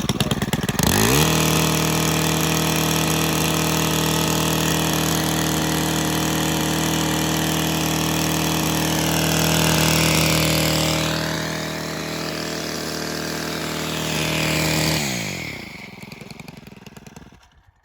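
Stihl gas combi unit with a line-trimmer attachment: the engine goes from a rough idle, is throttled up about a second in, and holds a steady high-speed drone with the line spinning. Near the end the throttle is released, and the engine winds down and stops.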